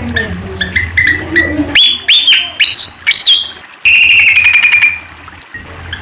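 Malaysian pied fantail calling: a run of quick short chirps, then a few sharply upslurred whistles about two seconds in, and a steady held note lasting about a second around four seconds in. A low hum sits beneath.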